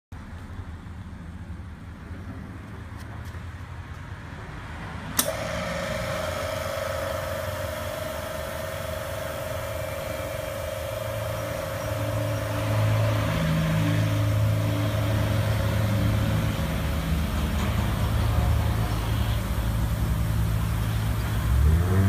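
A switch clicks about five seconds in and a high-pressure misting pump starts, running with a steady whine while its fog nozzles hiss. A deeper, uneven hum grows louder from about halfway.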